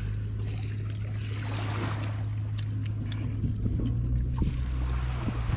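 Steady low seaside drone, with small clinks of steel plates and the sounds of people eating, a little busier in the second half.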